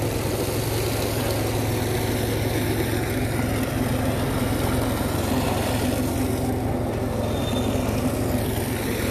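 Tractor engine running steadily at idle, with water from the tanker's pipe gushing onto the ground.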